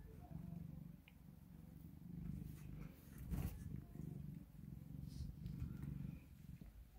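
Black long-haired cat purring close to the microphone while being scratched under the chin, a low rumble that swells and fades in pulses under a second apart. A brief rustle sounds about three seconds in.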